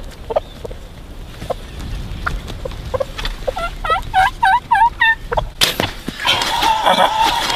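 A bird calling: a quick series of about seven short notes that dip and rise in pitch, then, about two seconds later, a louder, longer call with a wavering pitch.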